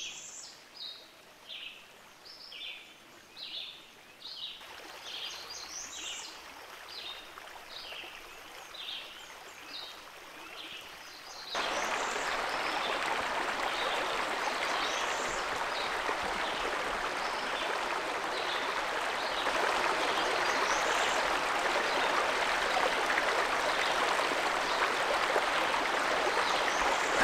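A small bird calling over and over with short high chirps. About halfway through it cuts to a steady rush of running water.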